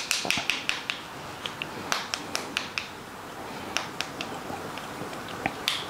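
Fork tapping against the rim of a bowl of melted chocolate to knock the excess chocolate off a dipped candy: a quick run of sharp taps in the first second, then scattered single taps.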